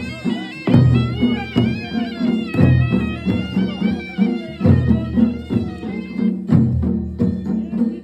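Traditional folk procession music: a piercing wind instrument plays a wavering melody over a steady drone, with heavy drum strikes about once a second.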